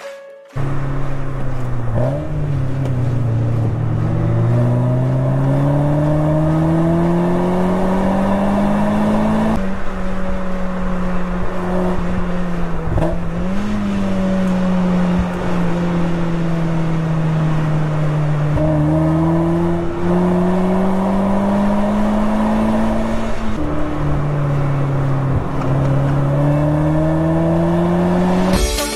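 First-generation Mazda Roadster's four-cylinder engine driven hard on a circuit, heard from the open cockpit with wind noise. The note climbs steadily with the revs and drops sharply at an upshift about ten seconds in and again about three-quarters of the way through. In between it falls away slowly, with a short rise in pitch around the middle.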